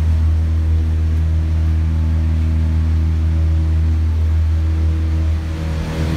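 Factory machinery running with a loud, steady low hum and a few steady higher tones over it, unchanging throughout.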